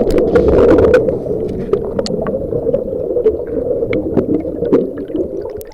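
A small fishing boat under way: a dense rush of water and wind noise with many sharp knocks and clicks, which drops off abruptly at the end.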